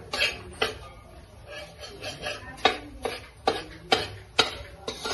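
A long metal spatula stirring and scraping karah prashad in a steel karahi, with repeated sharp clinks of metal on the pan, most of them coming roughly every half second in the second half.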